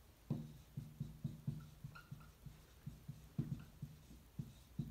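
Dry-erase marker writing on a whiteboard: a string of short, low squeaks, two or three a second, one for each stroke of a handwritten word.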